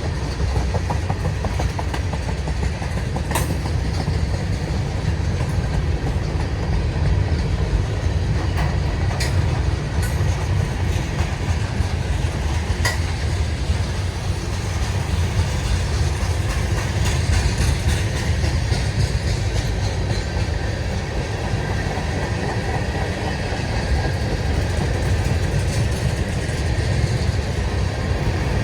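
A CSX freight train's cars rolling past on the rails: a steady low rumble with occasional sharp clicks from the wheels.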